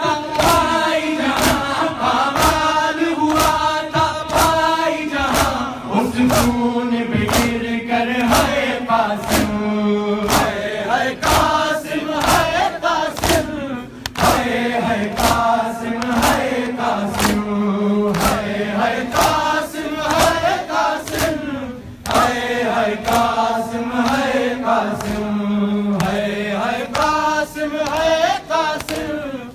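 Crowd of men chanting a noha in unison, with a steady beat of chest-beating (matam) slaps, about three every two seconds, and brief pauses between lines.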